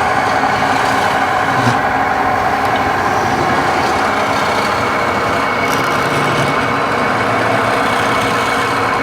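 Wood lathe running steadily, a loud, even machine hum with several steady tones over a dense noise.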